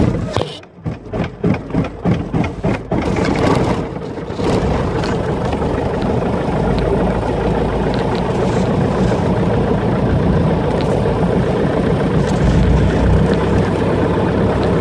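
Light aircraft's piston engine being started: the starter turns it over in a quick series of pulses, then it catches about three seconds in and runs steadily.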